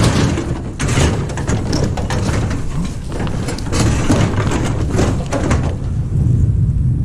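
A run of knocks, bangs and clatter from scrap being handled and loaded onto a truck, over a steady low rumble of wind on the microphone.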